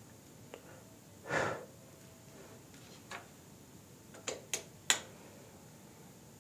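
A thin rod scraping through dirt and debris on a floor and knocking against it: a scrape about a second in, then three sharp taps in quick succession near the end, the last loudest.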